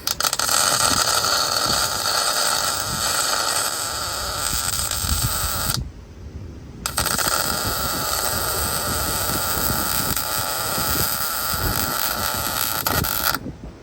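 Welder arc welding a nut onto a broken exhaust manifold bolt so the stud can be turned out: a steady, loud crackling hiss in two long runs of about six seconds each, with a one-second break between them.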